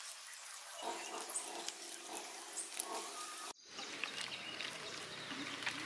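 Wet squelching of a bare hand working pieces of kingfish through a thick, wet curd-and-masala marinade in a stainless steel bowl, with a short break about three and a half seconds in.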